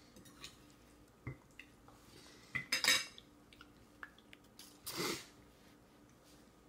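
A plastic spoon clinking and scraping in a stainless-steel bowl: a few separate knocks, the loudest cluster about three seconds in.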